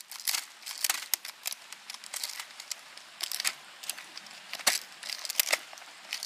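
Irregular clicks and crackling from hands handling the black plastic magazine of a toy Tommy-gun BB gun.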